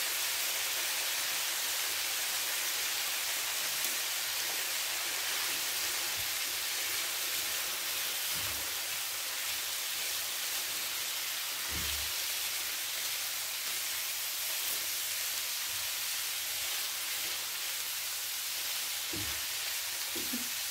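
Chicken pieces sizzling steadily in hot oil in a frying pan as ground spices are stirred in with a spatula, with a few soft low bumps.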